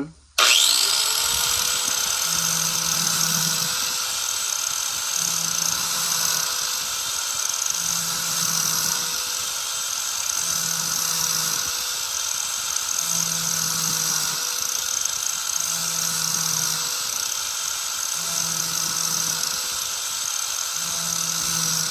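Harbor Freight angle grinder with an 80-grit disc spinning up about half a second in and running steadily with a high whine as it grinds the edge of a steel lawn mower blade, starting to wind down at the very end.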